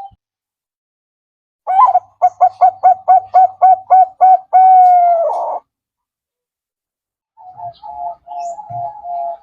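Zebra dove (perkutut) cooing: about ten quick, staccato coo notes followed by one long drawn-out note. After a pause, a softer, faster run of coos starts near the end.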